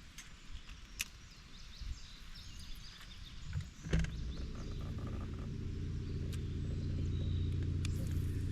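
A boat motor starts with a click about halfway through and runs with a steady low hum, growing a little louder. Before it there are only faint scattered clicks.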